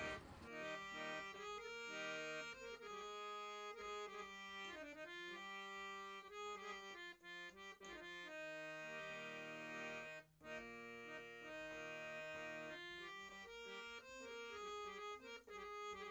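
Quiet background instrumental music, a reed-like melody over held chords that change every second or so.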